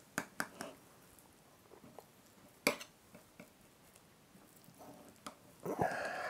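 A metal spoon tapping against a ceramic baking dish and digging into soft casserole: three quick clicks within the first second, another sharp click about two and a half seconds in, with faint scraping between. A brief voice sound near the end.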